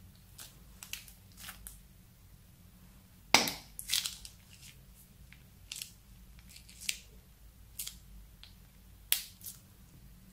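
Clear slime squeezed from a plastic piping bag onto a dish of slime, giving scattered sharp pops and crackles, the loudest about three and a half seconds in and again about nine seconds in.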